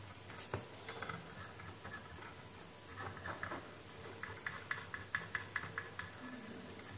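Faint scratching and light ticking of a wooden stick worked over a printed circuit board, a few scrapes at first, then a quick run of small ticks from about four to six seconds in.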